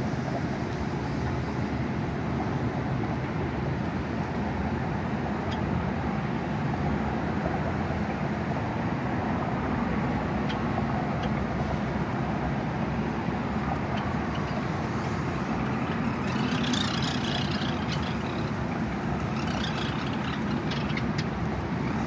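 Steady low rumble of background noise, with two short bursts of high bird chirping about two-thirds of the way in and again near the end.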